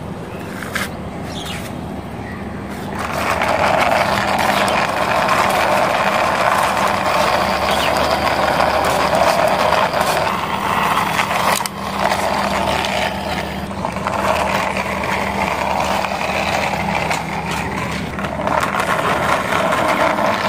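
Plastic wheels of a toy cement mixer truck rolling along the painted top of a wall as it is pushed by hand: a steady rolling noise that starts about three seconds in, breaks off briefly around the middle with a click, then goes on.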